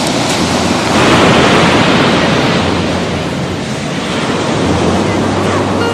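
Heavy ocean surf breaking on a sandy beach, a loud continuous wash that swells about a second in, eases a little past the middle and builds again, with wind rumbling on the microphone.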